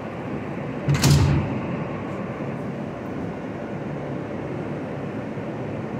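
R160 subway car's sliding doors shutting with a loud thump about a second in, followed by the car's steady running noise.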